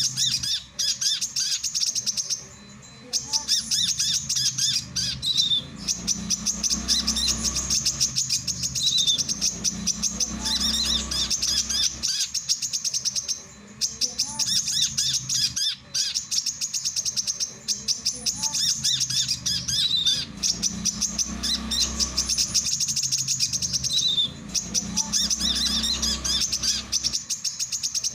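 Male brown-throated sunbird singing: a rapid, unbroken stream of high chirps and twitters. It breaks off briefly about every eleven seconds, as if the song is looped.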